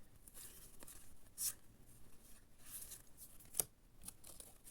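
Trading cards being handled and laid down in piles: a few faint swishes of card sliding on card, and one sharp tap about three and a half seconds in.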